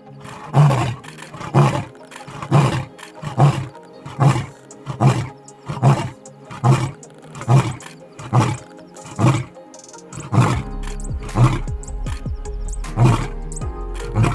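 Short roar-like animal calls repeating evenly about once a second over background music; a steady low hum joins about ten seconds in.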